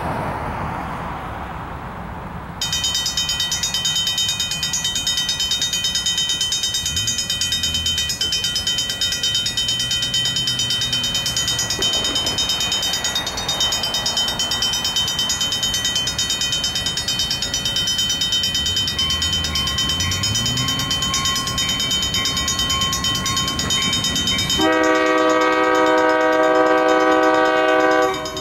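A railroad crossing's warning bell starts up about two and a half seconds in and rings on rapidly and steadily as the crossing signals activate for an approaching train. Near the end, a locomotive air horn sounds loudly over the bell.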